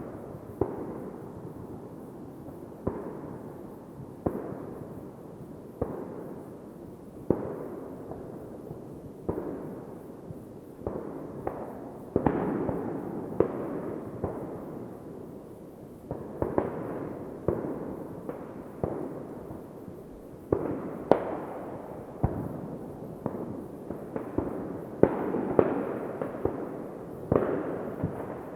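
New Year's Eve fireworks going off: a string of sharp bangs, roughly one every one to two seconds, each trailing off in a rumbling echo, over steady crackling from further away.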